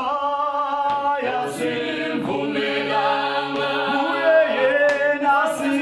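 Mixed-voice choir singing a cappella in close harmony, holding chords and moving between them every second or so.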